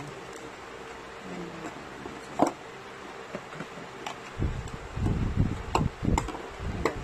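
Hands handling a black plastic packaging tray and film viewer: a sharp plastic click about two and a half seconds in, then from about four seconds on repeated knocks, taps and rubbing of the hard plastic, over a faint steady hum.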